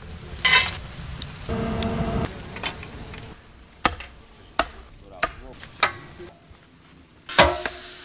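Hammer strikes on a glowing iron bar on a stump anvil at a field forge: four evenly spaced metallic blows about two-thirds of a second apart, starting about four seconds in, then a louder ringing strike near the end. Before them come a single clank and a brief steady hum.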